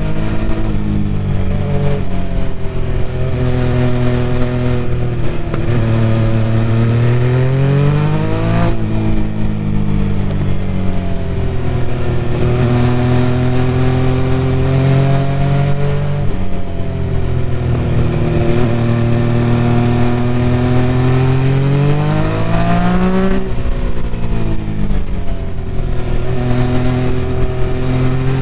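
MV Agusta Superveloce 800's three-cylinder engine and exhaust under way, rising and falling in pitch as the rider opens and closes the throttle through bends. The engine note climbs sharply twice, about a third of the way in and near the end, each time falling away again afterwards.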